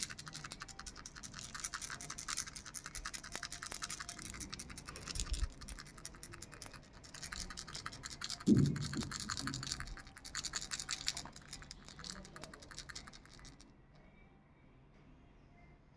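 A baby's toy rattle being shaken fast and continuously, a dense clicking rasp of small pieces hitting the shell. There is one louder thump about halfway through, and the shaking stops a couple of seconds before the end.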